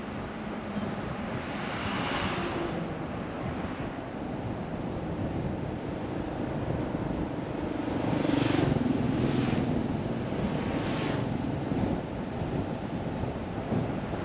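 A car driving along a road: steady tyre and wind noise, with a few brief swells of hiss about two seconds in and again around the middle.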